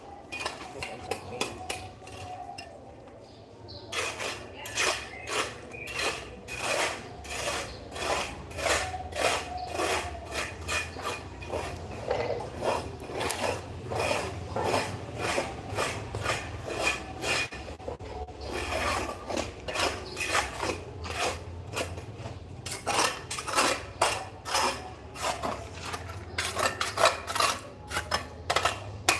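Rhythmic rasping scrapes of a hand tool worked against building material, about three strokes a second, pausing briefly about two seconds in and then going on steadily, over a steady low hum.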